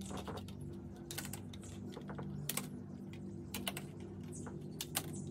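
Irregular sharp clicks, a second or so apart, as zip-tie tails are snipped off a plastic scoop and vent cover with cutters. A steady low hum runs underneath.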